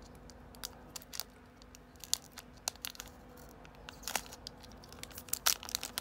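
Foil wrapper of a Magic: The Gathering collector booster pack crinkling and tearing as it is opened slowly by hand, in scattered short crackles, the sharpest a little past four seconds and about five and a half seconds in.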